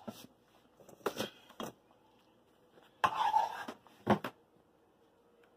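A metal spoon scraping and knocking in a skillet of tomato meat sauce as the sauce is spooned out. It comes as a few short scrapes, with the longest a bit past the middle.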